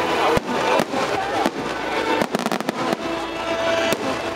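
Aerial firework shells bursting in quick, irregular succession, with music playing underneath.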